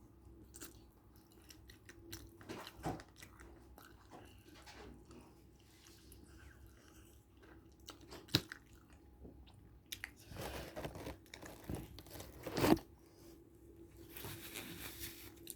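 Close-up chewing and biting of chicken, with scattered sharp crunches; a loud crunch about a second and a half from the end.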